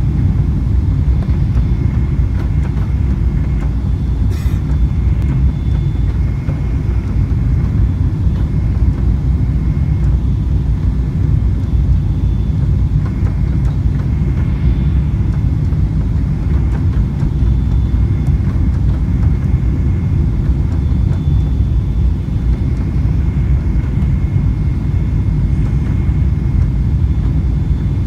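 Steady low rumble of airliner cabin noise on final approach, engines and rushing airflow heard from a window seat, with a faint high whine that comes and goes.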